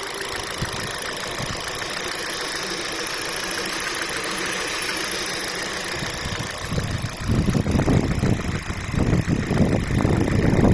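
Warmed-up Kia Rio four-cylinder engine idling with the knock of a worn, high-mileage engine that has been through oil starvation and overheating. From about six and a half seconds in, loud uneven low rumbling and thumps rise over it.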